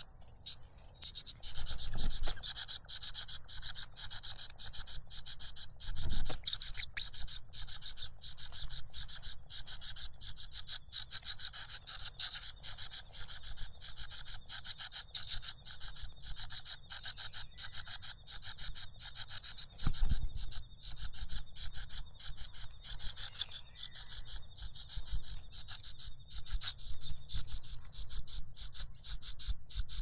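Nestlings, a cuckoo chick among them, begging in the nest: a fast, unbroken run of high-pitched cheeps starting about a second in, with a few soft low thumps.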